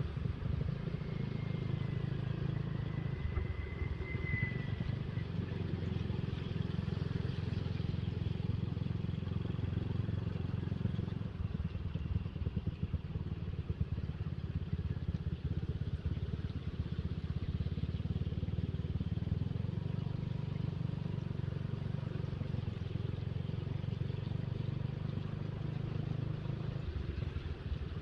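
Motorcycle riding at a steady pace, its engine and wind rumble on the rider's microphone as a continuous low drone, with a faint high whistle a couple of seconds in.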